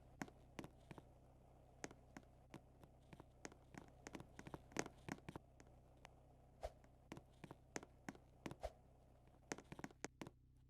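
Faint, irregular light clicks and taps, a few every second, over a steady low hum.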